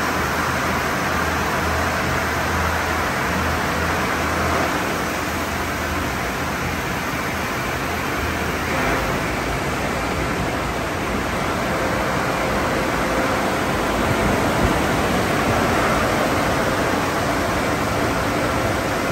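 Sonny's conveyor car wash tunnel running: water spraying onto a car and tunnel equipment giving a loud, steady rushing hiss. A low hum underneath fades out over the first several seconds.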